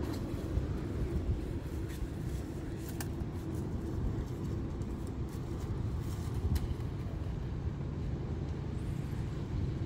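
Steady low rumble of a running vehicle engine, with a few faint clicks.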